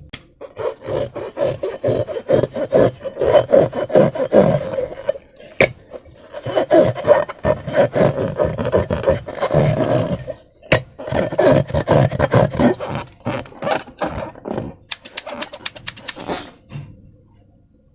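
Rubber balloon being rubbed and squeezed by hands, giving loud squeaky rubbing strokes in three bursts with short pauses between. Near the end comes a quick run of sharp clicks.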